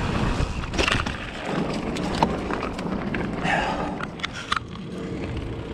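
Mountain bike rolling over a loose, dusty dirt trail: a steady crunch of tyres on dirt and gravel, with a few sharp clicks and knocks from the bike.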